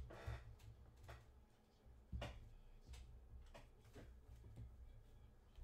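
Faint handling of trading cards: a tap right at the start, then scattered light clicks and knocks as stacks of cards are set down on a table and picked up.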